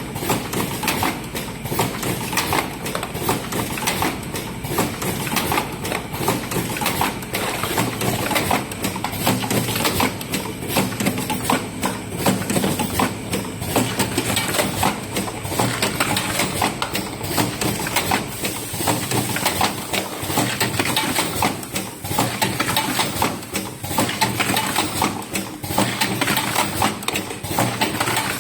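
Automatic cartoning machine running: a steady, rapid clatter of clicks and knocks from its box-forming and packing mechanism.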